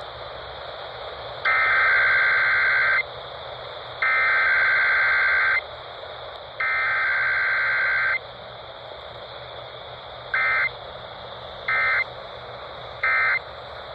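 Emergency Alert System SAME data bursts received over the radio with background hiss: three long buzzy header bursts of about a second and a half each, then three short end-of-message bursts near the end. This is the digital coding of a Required Weekly Test.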